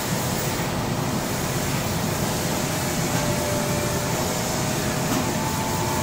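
Steady whirring hiss of a robotic welding cell's equipment running, with no arc struck. A faint steady whine comes in about halfway through.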